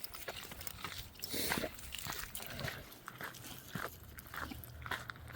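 A bull terrier nosing about on a trail, with a short sniffing puff about a second and a half in and light, scattered crunches on the path.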